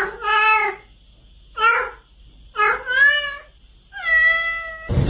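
A domestic cat meowing over and over, about five meows with short pauses between them, the last one long and held at a steady pitch. A steady hiss of background noise comes in right at the end.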